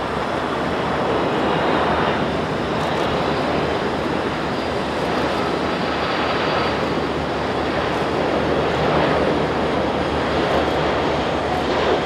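Boeing 747-400 freighter's four jet engines on approach to land: a steady jet noise, with a faint high whine for a few seconds near the middle.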